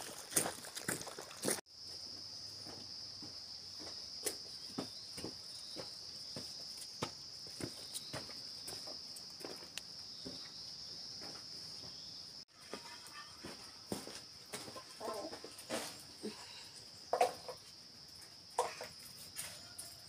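A steady, high-pitched chorus of insects, with scattered light clicks and knocks over it. The chorus drops out briefly twice.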